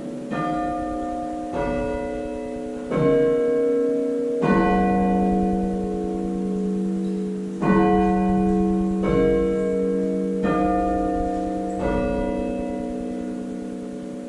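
Church bells from a ring of six, tenor 10–2–12 cwt in F, struck one at a time: eight strikes about a second and a half apart, with a pause of about three seconds in the middle. Each note rings on and overlaps the next, and the last one fades out near the end.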